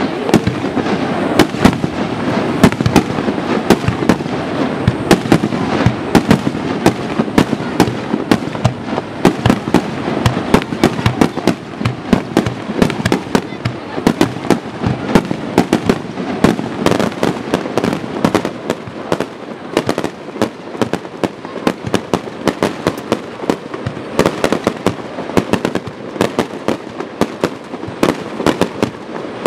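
Fireworks display: a dense, continuous stream of sharp bangs and crackles, several a second, from aerial shells and low bursts going off.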